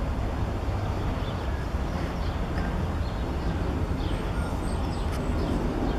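New York, Susquehanna & Western diesel locomotives running light, a steady low engine rumble as the units roll slowly away.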